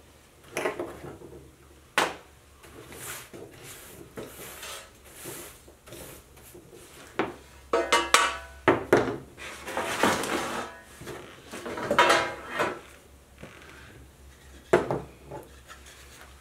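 Stiff hand brush sweeping bits of old wax and debris across a plywood workbench in several scratchy strokes, with scattered knocks and clatter of wooden frame parts and tools being picked up and set down.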